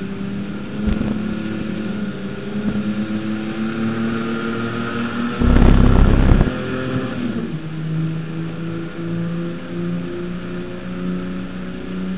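Holden HQ race car's 202 straight-six engine running at race speed, its pitch shifting as the car changes speed. A sharp knock comes about a second in, and a loud rumble lasting about a second comes near the middle.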